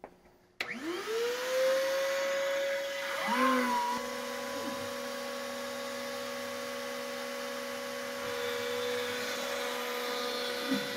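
Router spindle of a Shapeoko 4 CNC machine spinning up about half a second in, its whine rising quickly to a steady high pitch. A second, lower motor tone joins about three seconds in, and both run on steadily as the 1/8-inch flat end bit starts carving the wooden blank.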